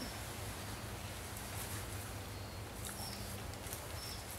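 Outdoor garden ambience: steady background noise with a few faint, short high chirps and light clicks scattered through it.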